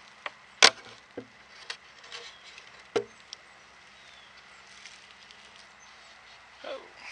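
Wooden beehive inner cover being pried loose and lifted off: one sharp loud crack about half a second in, then a few smaller wooden knocks.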